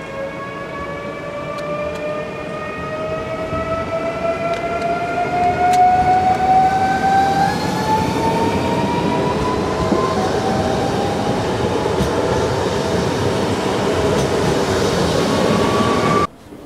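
PESA ED74 electric multiple unit pulling away from a station platform and accelerating. Its traction drive whines in several tones that climb steadily in pitch, stepping up a couple of times, over a growing wheel and rail rumble. The sound cuts off suddenly near the end.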